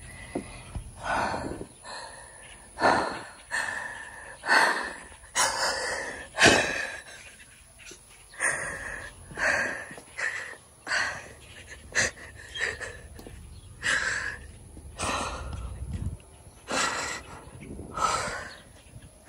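A person's heavy, gasping breaths close to the microphone, about one a second.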